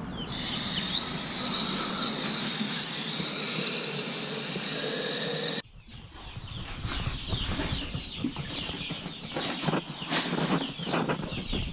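A garden-hose spray nozzle sprays water steadily for about five and a half seconds, rinsing chick waterer trays, then stops suddenly. After that, baby chicks peep while a plastic cup scoops chick-feed pellets from a paper sack, with rustling and scraping of the pellets and the bag.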